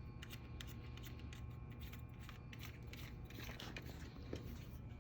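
Small plastic switch parts handled by hand: light clicks and ticks throughout, with a rubbing scrape about three to four seconds in.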